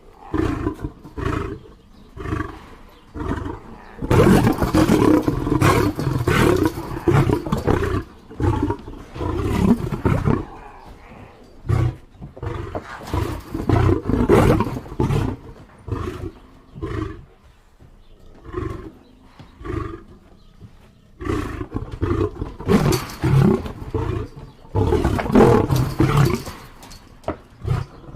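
Lion roaring in repeated bouts: three loud stretches of roaring, separated by quieter pauses with only short, fainter calls.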